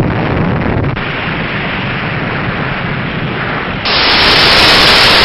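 Loud, harsh static-like hiss that starts abruptly, then jumps louder and brighter about four seconds in.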